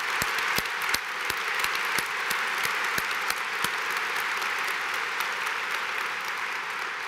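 A large crowd applauding in a big hangar, a dense steady clapping with a few louder single claps close by in the first few seconds. The applause starts to die away near the end.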